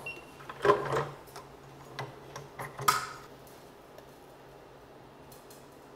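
A handful of light clicks and taps of kitchen utensils against a mixing bowl, spaced out over the first half.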